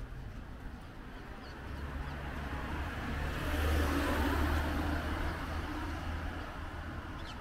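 A motor vehicle driving past: its engine hum and tyre noise swell to a peak about four seconds in, then fade away.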